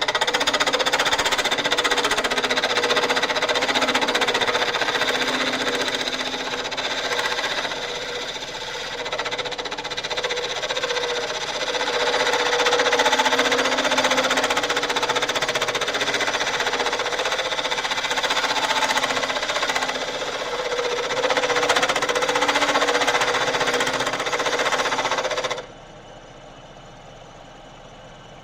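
Metalworking lathe running loudly: a dense mechanical noise with several steady whining tones, rising and falling in level. It cuts off suddenly near the end, leaving a quieter steady background hum.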